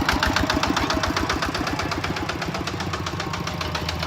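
Engine of rice harvesting machinery running steadily, with a fast, even knocking beat of about ten strokes a second.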